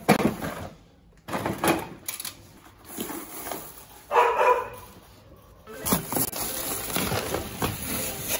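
Knocks and clatter of plastic trim and metal parts being handled and pulled from a rusted car interior. A single short, loud call comes about four seconds in, and a steady rustling hiss with light knocks runs through the last couple of seconds.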